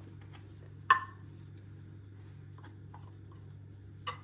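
Hard plastic acrylic dessert cups being handled and set down on a counter: one sharp clack about a second in, a few light clicks, and another clack near the end, over a steady low background hum.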